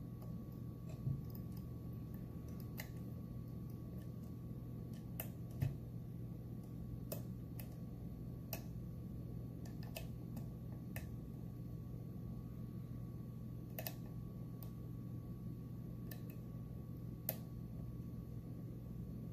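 Small metallic clicks of a dimple pick working the pin stacks of a Mul-T-Lock Interactive+ dimple lock cylinder under tension. The clicks come irregularly, a few seconds apart, with two soft low knocks about a second and five and a half seconds in, over a steady low hum.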